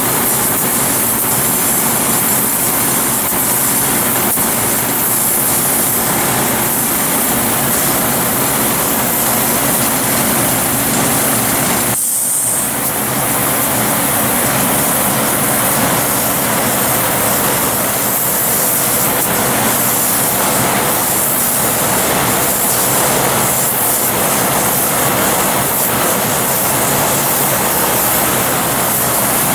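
Steady loud hiss of compressed air from an airbrush, with a faint machine hum from the air supply underneath. The sound drops out briefly about twelve seconds in.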